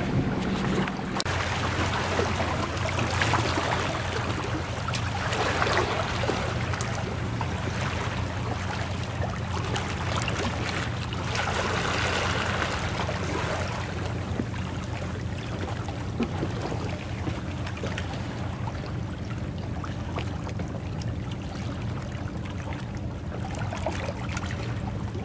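Sea water washing and lapping against concrete breakwater tetrapods, with a steady low hum underneath from about a second in.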